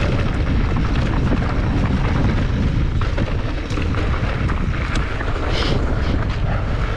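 Wind buffeting the camera microphone on a mountain bike descending a dirt trail, a steady low rumble with scattered clicks and rattles from the bike over the ground.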